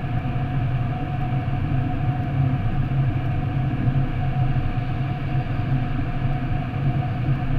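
Steady road and engine noise of a car driving through a motorway tunnel, heard from inside the cabin: an even low rumble of tyres and engine with no change in pace.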